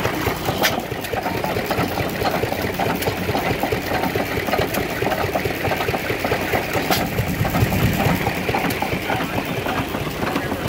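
Vintage stationary hit-and-miss gas engines running, a steady, rapid mechanical clatter of their valve gear and firing.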